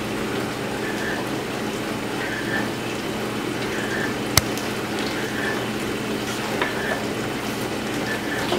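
Steady hiss with a faint low hum, and a single sharp click about four and a half seconds in.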